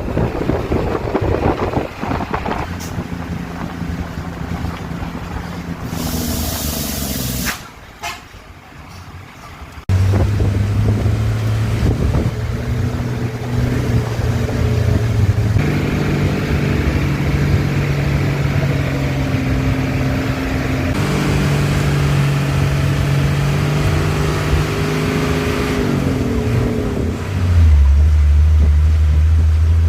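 Motor vehicle engine running under way, its pitch stepping up and down, with abrupt cuts between shots about a third of the way in.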